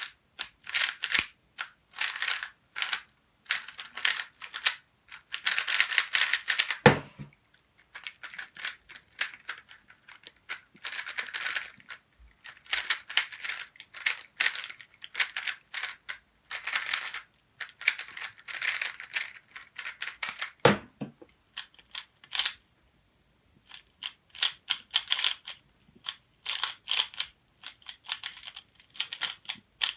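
3x3 Rubik's Cube being turned at speedcubing pace: runs of rapid plastic clicking and clacking in bursts with short pauses between them. Two heavier thumps, about 7 s and 21 s in.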